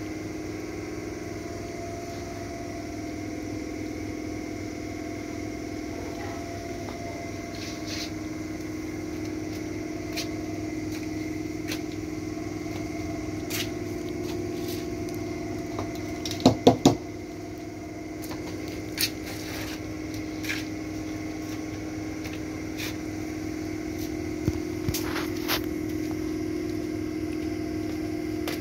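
A steady machine hum with several constant tones runs throughout. Over it come scattered short clicks and crunches as cats chew scraps of food off the ground. There are three sharp, loud sounds in quick succession just past halfway.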